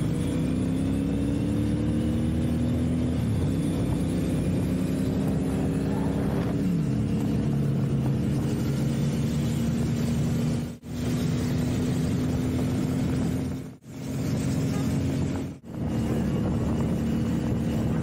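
Motorcycle engine running steadily at cruising speed, with wind and road noise. The sound drops out briefly three times in the second half.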